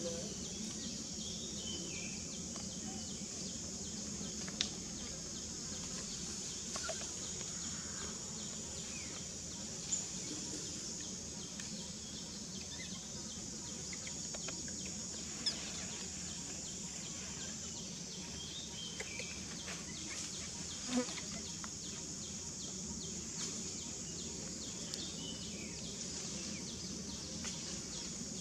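Steady high-pitched drone of insects, with a few sharp clicks standing out.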